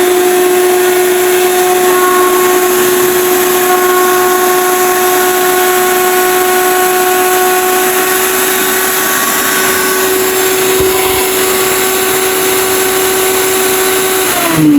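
Electric blender (mixer grinder) motor running at full speed with a steady hum and hiss while blending chutney, then switched off near the end, its pitch falling as it winds down.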